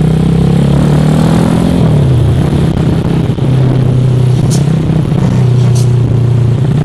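Motorcycle engine running at riding speed, its pitch easing down about two seconds in and then holding steady, with a rush of wind and road noise. Two brief high hisses come near the end.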